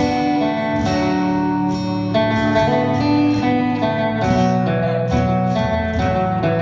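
Acoustic band playing an instrumental opening: guitar chords and plucked notes ringing over sustained low notes, with no singing.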